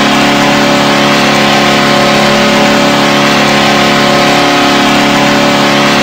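Nashville Predators' hockey goal horn sounding one long, loud, steady blast.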